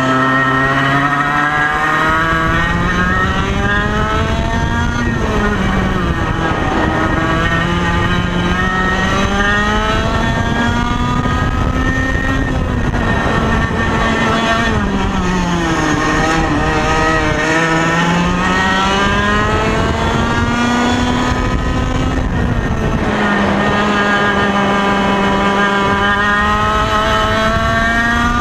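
Ital Sistem SL21 100cc two-stroke kart engine at full throttle, running an old TKM exhaust. Its revs climb in long, high-pitched rises and drop back three times.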